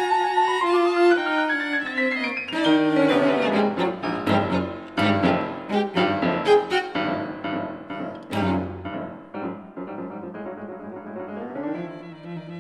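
Piano trio of violin, cello and piano playing a classical piece live: sustained bowed string lines over repeatedly struck piano chords, growing quieter over the last few seconds.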